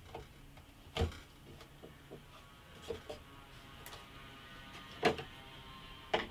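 Wooden drawer parts knocking and clicking as they are pressed together during flat-pack assembly: a few sharp knocks, about a second in, around five seconds in and near the end, with softer clicks between.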